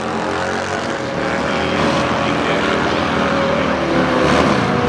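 Motorcycle engines at a drag-strip start line, with a sport bike held at high revs through a rear-tyre burnout. The engine note holds steady, then wavers and shifts in pitch about four seconds in.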